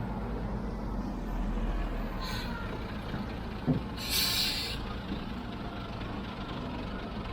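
Heavy diesel machinery engine running steadily, with a short hiss of air about two seconds in and a louder, longer one about four seconds in, and a single knock just before it.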